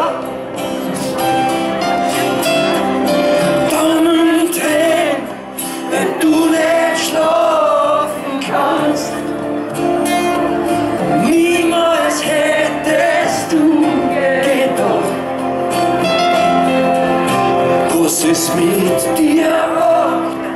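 Live band music in a slow tempo: a man singing at the microphone over acoustic guitars and drums.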